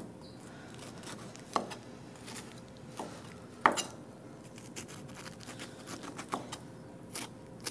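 Kitchen knife scraping the eyes out of a peeled pineapple: scattered short scrapes and taps, the sharpest about three and a half seconds in.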